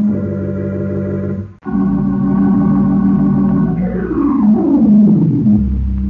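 Organ music playing sustained chords. It cuts out for a moment about a second and a half in, then comes back. Near the end a sliding tone falls in pitch and gives way to a low rumbling drone.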